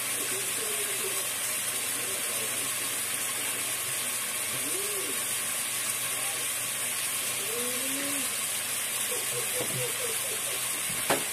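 A steady hiss from a pot of vegetable curry cooking on the stove. Faint voices murmur in the background.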